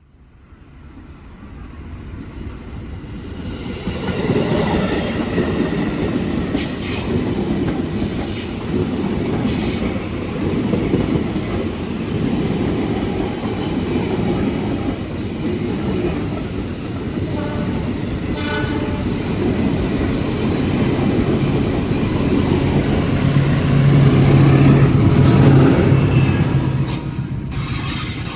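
Container freight train passing: a sustained rumble of wagons with rapid clacking of wheels over rail joints and brief high wheel squeal. It swells up from silence over the first few seconds, a low steady drone grows loudest about three-quarters of the way through, and it eases off near the end.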